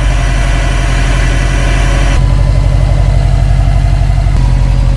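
Subaru STI's turbocharged flat-four engine idling steadily just after being started on fresh oil. A hissy upper layer drops away about two seconds in, leaving the low, even idle.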